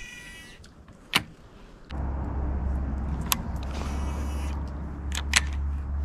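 Shimano SLX DC baitcasting reel whining briefly as the spool spins out on a cast, then a sharp click about a second in. From about two seconds in, a steady low rumble with a few scattered clicks while the reel is worked.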